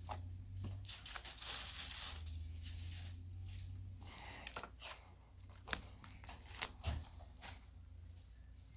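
Slime being pulled and squished by hand, a soft tearing, crinkling sound for the first few seconds, followed by a few sharp clicks or taps.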